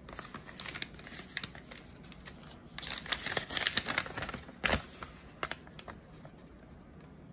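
Folded paper leaflet being handled and turned over by hand: irregular crinkling and rustling, busiest through the middle, with one sharp snap of the paper about two-thirds of the way through.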